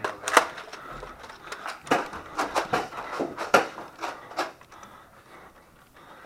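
Nerf Rival Apollo blasters firing and foam balls hitting walls and furniture: a string of sharp clacks and thuds, thinning out near the end.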